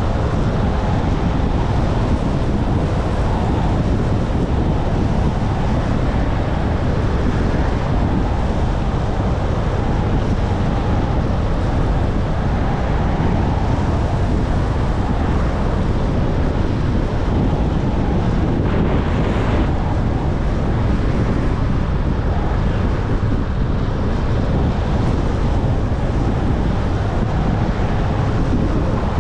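Steady wind rumble on the microphone of a moving scooter, with the scooter running underneath it.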